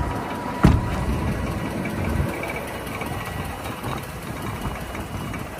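Heavy truck cab door slamming shut once, about half a second in, with a single sharp thud. A steady low engine-like rumble runs underneath.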